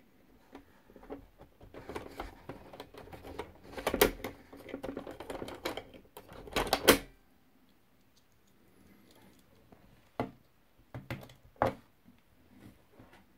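Mechanism of a 1975 LJN Mickey Mouse toy index typewriter clicking and clattering as it is worked, with a dense run of clatter and two loud clacks about four and seven seconds in. After a pause, a few separate sharp clicks follow.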